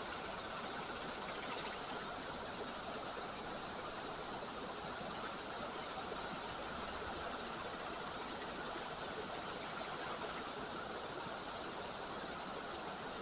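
Steady outdoor rushing noise with no change in level, and small birds giving faint, short high chirps every few seconds, several in quick pairs.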